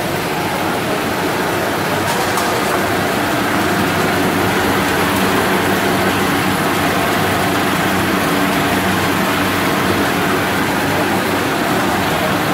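Snack-food extrusion line machinery running: a steady, even mechanical hum with several constant tones over a wash of motor noise.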